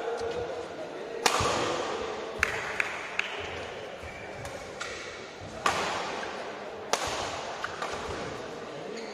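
Badminton rally in an echoing hall: a string of sharp smacks as the rackets strike the shuttlecock, spaced irregularly over the seconds, with short squeaks of court shoes and a low murmur of spectators underneath.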